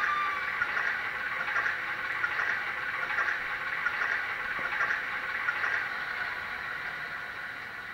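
Sound-fitted model class 05 diesel shunter: a Mr Soundguy recorded engine sound played through a tiny 18x13 mm speaker, idling with a steady thin chatter while the locomotive stands. The sound slowly fades in the last few seconds.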